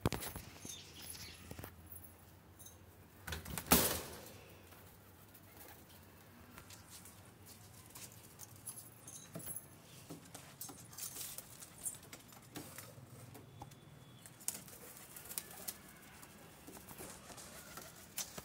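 Pigeons flapping their wings, with one loud, sudden flurry about four seconds in, followed by scattered soft taps and rustles.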